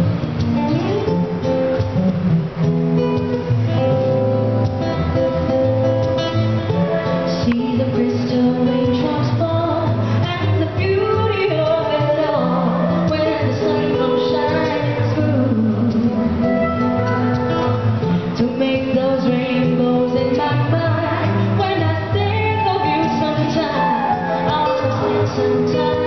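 A woman singing a pop/soul ballad into a microphone, accompanied by guitar.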